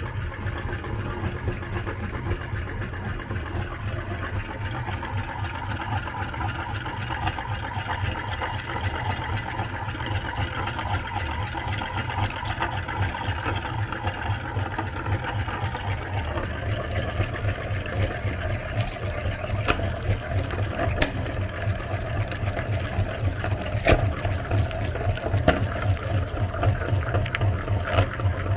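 Electric meat grinder running steadily, its motor humming with a fast pulse as it grinds ice cream, with a few sharp clicks in the last third.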